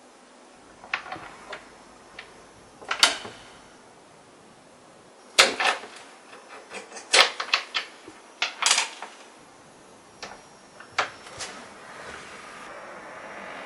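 Irregular knocks, clicks and clatters, about ten spread over the stretch and some coming in quick clusters, the loudest about three and five seconds in; a soft hiss rises near the end.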